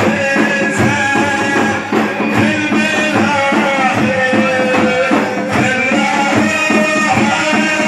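Devotional praise music: drums beat a fast, steady rhythm under sustained melodic tones.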